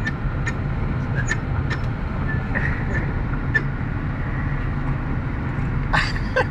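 Toyota car's engine and road noise heard from inside the cabin, a steady low rumble, with a few light clicks and knocks over it.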